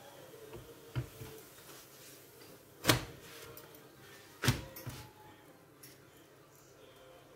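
A few sharp knocks and taps from handling dough and cooked pastry sheets on a wooden board and pan. The loudest comes about three seconds in and another about a second and a half later, with lighter taps around them.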